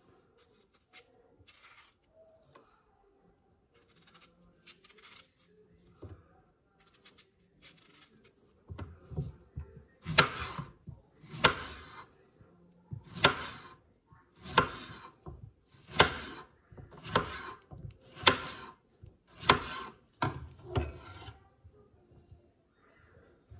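A knife slicing a cucumber into rounds on a cutting board: faint handling at first, then about ten cuts roughly a second or so apart, each ending in a knock on the board.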